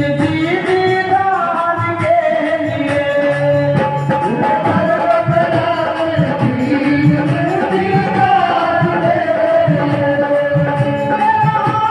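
Live devotional bhajan: a woman sings through a microphone over sustained accompanying instrument notes and a steady drum beat.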